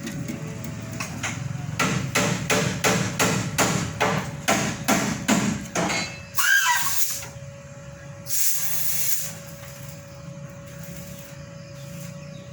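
A quick run of sharp knocks, about three a second for some four seconds, like hammering. Then a short high sound that bends in pitch, and a brief burst of hiss.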